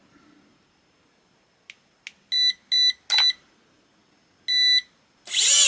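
A new RC car ESC powering up: three short, evenly spaced startup beeps and then a fourth, separate confirmation beep, all at the same pitch. Near the end the RC truck's electric motor whirs up under throttle. The new ESC works, which shows the old ESC was the fault.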